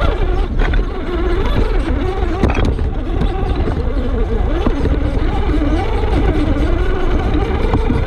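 RC crawler's small electric motor whining, its pitch wavering up and down with the throttle, over a heavy steady low rumble.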